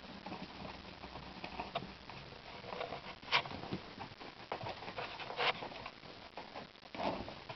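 Kittens play-fighting on an upholstered loveseat: soft pattering and rustling of paws scrambling over fabric and cushions, with a few louder scuffs.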